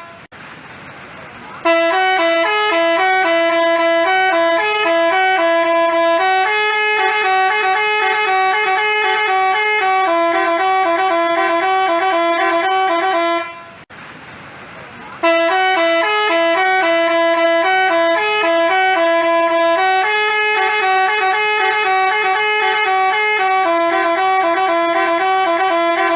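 Telolet basuri multi-tone musical horn playing a quick melody of stepped notes. It starts about two seconds in, breaks off after about twelve seconds, and plays the same tune again after a short pause.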